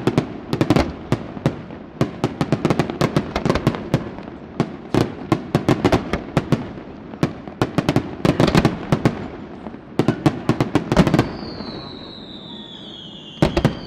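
Aerial fireworks shells bursting in quick succession, a dense run of sharp bangs and crackles. About eleven seconds in the bangs stop and a high whistle falls slowly in pitch, and a short cluster of bangs comes near the end.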